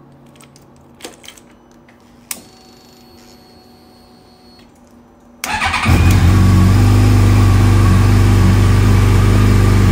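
2015 Yamaha FJR1300's inline-four engine started from cold. After two sharp clicks, the starter cranks briefly about five and a half seconds in, the engine catches at once and settles into a steady idle, left running to warm the oil to about 60 °C.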